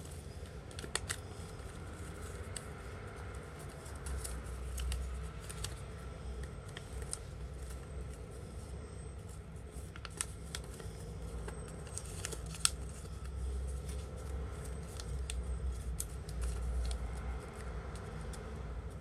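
A sheet of origami paper being handled and creased by hand: scattered crinkles and sharp crease clicks, the loudest about two-thirds of the way through, over a steady low rumble.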